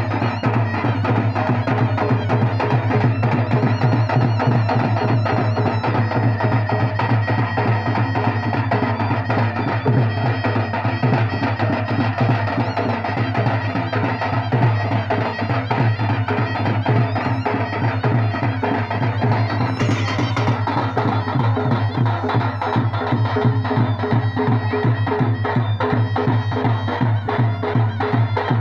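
Western Odishan folk ensemble playing continuously: a shawm with a brass bell, the mahuri, plays a nasal reed melody over fast, dense drumming with a heavy bass drum.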